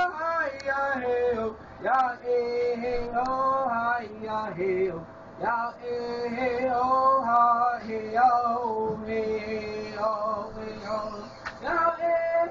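A solo voice singing a slow melody, holding long notes in phrases with short breaks between them.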